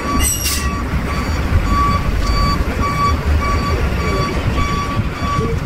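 A vehicle's reversing alarm beeping steadily about twice a second over a low engine rumble, with a short whoosh about half a second in.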